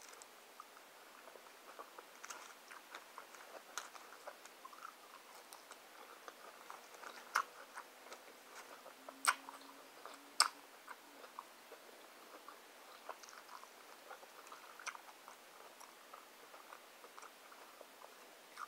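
Close chewing of a crunchy Doritos Locos taco: a steady run of small wet chews and crackles, with three sharper crunches a little past the middle.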